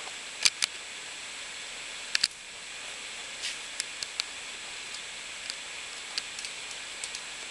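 Light, sharp clicks and taps, about a dozen scattered over several seconds, the loudest pair coming close together near the start: a steel HeliCoil insertion tool handled against an aluminium plate in a vise while a coil insert is threaded in by hand. Under them a steady hiss with a faint high whine.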